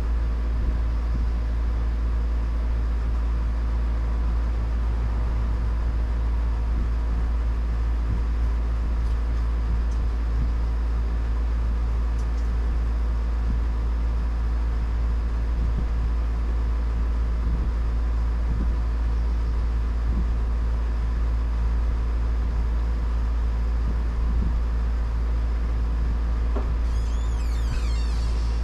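Steady low machine hum with a deep rumble. A brief high warbling sound comes near the end.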